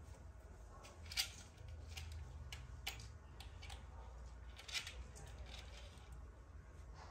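Kittens playing: scattered light clicks and scratches of small claws and paws on a tiled floor and plastic plant pot, the sharpest click about a second in, over a low steady rumble.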